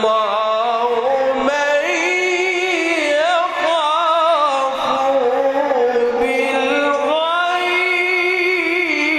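A male Quran reciter's voice in melodic, chanted recitation, holding long ornamented notes that waver and glide in pitch.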